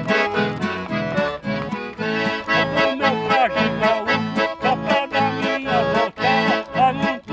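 A button accordion playing a lively traditional gaúcho tune, its bass keeping a steady beat, with an acoustic guitar accompanying.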